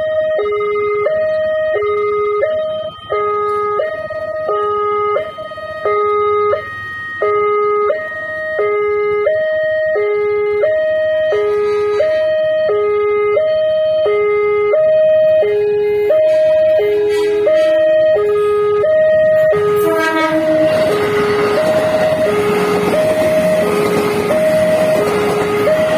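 Railway level-crossing warning siren sounding a steady two-tone alternation, high and low about twice a second. About twenty seconds in, a passing train's loud rush of wheel and rail noise rises under the siren, which keeps sounding.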